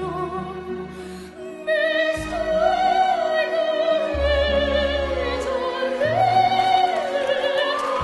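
A young girl singing in operatic style with orchestral accompaniment, holding long notes with vibrato. The music dips about a second in, then swells louder.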